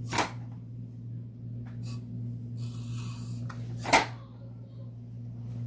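Plastic fan parts being handled during reassembly: a sharp knock at the start, a brief rustle or scrape around three seconds in, and another sharp knock about four seconds in, over a steady low hum.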